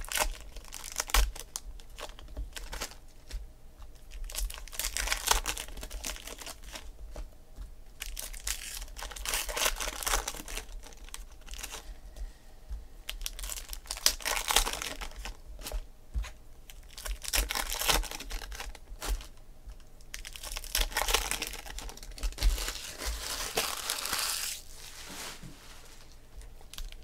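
Sealed baseball card pack wrappers being torn open and crinkled by hand, in irregular bursts of tearing and crinkling.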